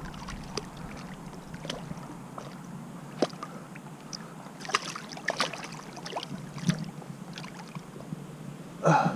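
Stream water running steadily, with scattered small clicks and ticks and a brief louder sound just before the end.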